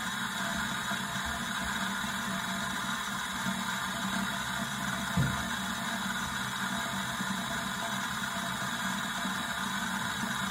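Bathroom faucet running steadily into the sink, a constant hiss over a low hum, with one soft knock about five seconds in.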